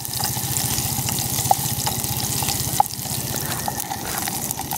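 Food cooking in a pot on a camp stove while a wooden spoon stirs it: a steady hissing, watery sound with a quick low pulsing underneath, and a few light knocks of the spoon against the pot.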